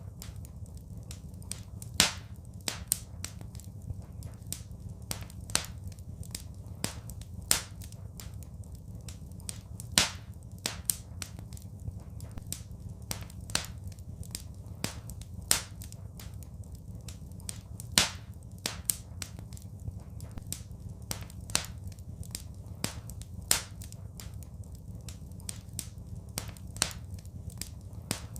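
Wood fire crackling in a fireplace: irregular sharp snaps and pops, a few much louder than the rest, over a steady low rumble.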